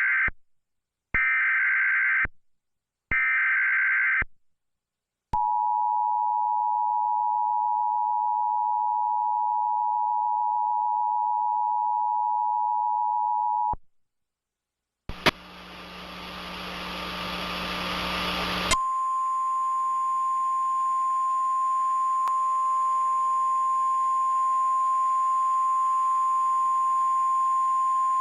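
Emergency Alert System tornado-warning alert sequence. It opens with three short screeching bursts of the digital SAME header, then the two-tone EAS attention signal held steady for about eight seconds. After a click comes a few seconds of loud static hiss with a low hum, and then the single steady NOAA Weather Radio alert tone over hiss for about ten seconds.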